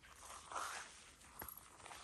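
Footsteps while walking: soft swishing steps about one every three quarters of a second, with a few small clicks between them.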